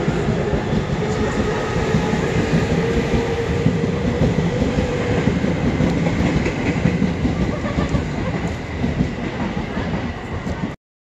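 JR electric commuter train pulling out and running past close by on the next track: steady wheel rumble with a faint motor tone. The sound cuts off suddenly near the end.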